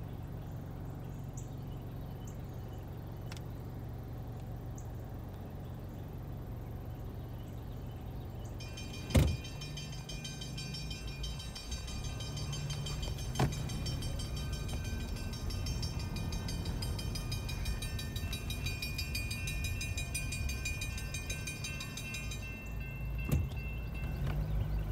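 Railroad grade-crossing warning bell ringing rapidly, starting about nine seconds in and stopping about two seconds before the end, as the crossing gates come down ahead of an approaching train. Under it is the low hum of an idling car, with a sharp knock about nine seconds in and two fainter ones later.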